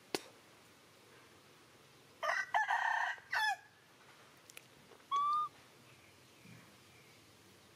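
A rooster crows once, a harsh drawn-out call in several parts lasting about a second and a half, starting about two seconds in. A sharp click comes at the very start, and a short clear call that slides slightly upward follows a couple of seconds after the crow.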